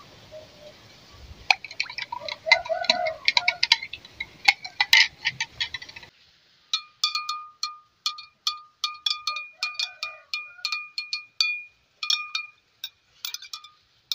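Metal spoon stirring juice in a glass jar, clinking against the glass about three times a second, each clink ringing with a clear glass tone. The background hiss drops away abruptly about six seconds in.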